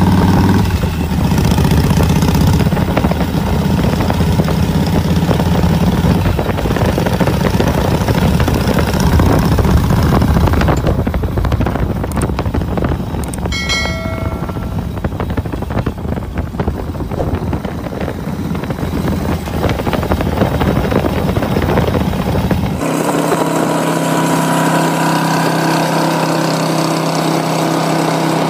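Custom big-wheel chopper's V-twin engine running as the bike rides along, with a short electronic chime about halfway through. Near the end the sound cuts to the steady engine drone of two cruiser motorcycles, a Suzuki Volusia and a Harley-Davidson Deluxe, riding side by side.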